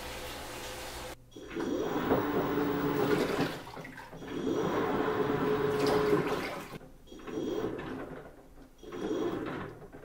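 Top-loading washing machine agitating water in its tub. The water churns and swishes in surges of about two seconds with short pauses between them as the pulsator drives it one way and then the other, after a steadier, quieter hum in the first second.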